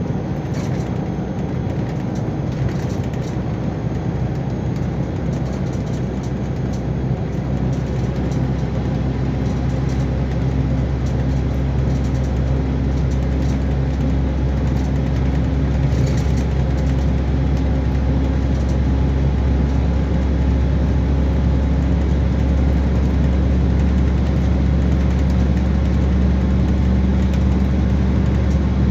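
MAN D2066 LOH07 six-cylinder turbodiesel of a Neoplan Starliner coach running steadily, heard from inside the coach as a continuous low drone. From about halfway through it grows gradually louder and slightly higher in pitch, as the engine picks up revs.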